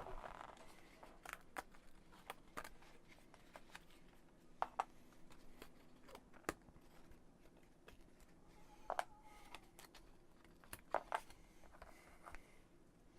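Scattered light clicks and taps of small laser-cut MDF kit pieces being handled and dry-fitted together on a tabletop, a few of them sharper double taps.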